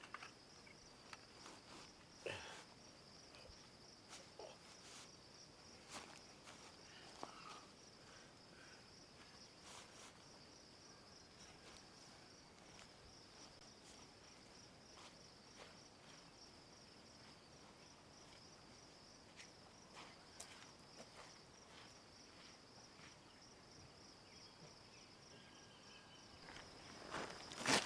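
Faint, steady high-pitched cricket-like insect trill with a fine, even pulse. Scattered light clicks and knocks sound over it, with one louder knock near the end.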